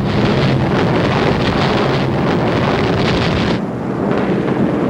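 Steady roar of bomber engines in flight: a loud rushing noise over a low drone. The higher part of the noise thins out about three and a half seconds in.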